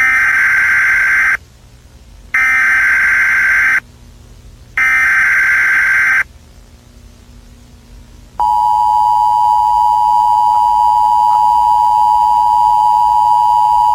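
Emergency Alert System tones: three identical data bursts of the digital alert header, each about a second and a half long with a second's gap between them, then, about eight seconds in, the steady two-tone attention signal starts and holds. Together they announce the start of an emergency alert message.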